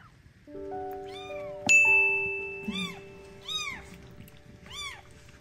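Newborn kittens mewing: about four short, high cries that rise and fall in pitch, over background music with held notes. A sharp, bright music note just under two seconds in is the loudest sound.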